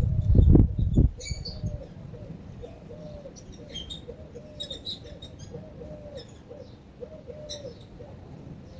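Outdoor birdsong: a dove cooing in a long run of short, repeated low notes, with small birds chirping high above it. A loud low rumble stops about a second in.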